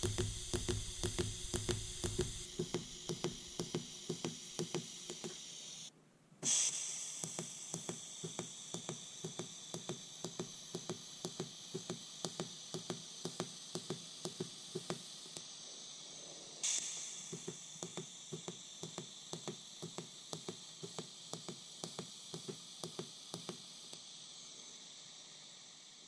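Pulsed DC TIG welding arc from a Fronius TransTig 210: a steady hiss with regular ticks about twice a second as the current pulses. The arc breaks off about six seconds in and strikes again at once, with another surge later on.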